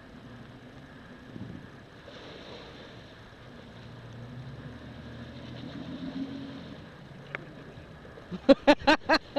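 Jeep Wrangler's engine running at low revs as it crawls slowly into the river, swelling a little in the middle. Near the end, a short, loud burst of a person's voice close to the microphone.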